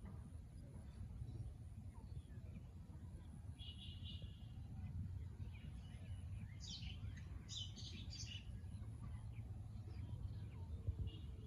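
Small birds chirping faintly in short bursts, loudest in a quick run of high chirps in the middle, over a steady low rumble.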